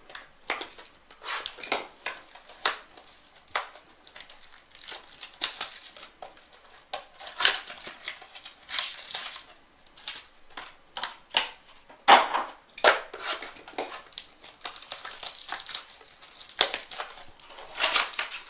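Trading-card pack wrappers and box packaging crinkling and rustling in irregular short bursts as the packs are handled and pulled out of the box.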